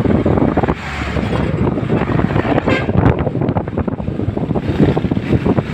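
Road traffic going by close at hand, vehicle engines and tyre noise, with wind buffeting the microphone.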